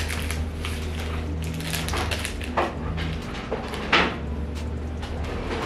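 A folded paper care card tied to a handbag's handle being handled and picked open: paper rustling with a few sharp clicks, the loudest about four seconds in, over a steady low hum.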